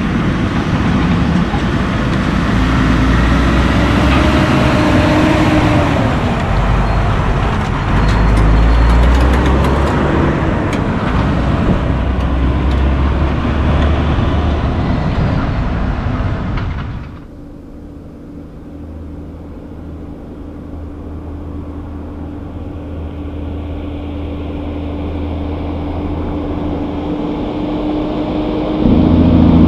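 Loaded Kenworth dump trucks with pup trailers pulling away, diesel engines running loud with the engine pitch rising as they accelerate. About seventeen seconds in the sound cuts to a quieter diesel dump truck and trailer approaching, its engine hum growing steadily louder and jumping louder just before the end.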